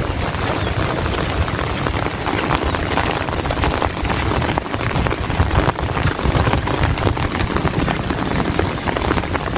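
Heavy rain falling steadily, with many sharp close drop hits over a dense hiss and a low rumble underneath.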